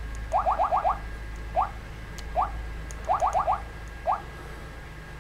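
The Navroad DUXO GPS navigator's on-screen keyboard gives a short rising chirp for each key tapped with the stylus on its touchscreen. A quick run of four chirps is followed by two single ones, then another run of four and one more. Faint ticks of the stylus tip on the screen come with them.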